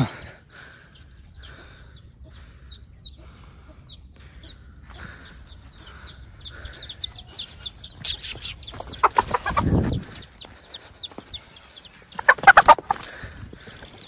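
Rooster clucking and squawking in two louder bursts, one a little past halfway and one near the end, over a steady run of short, high, falling chirps from small birds.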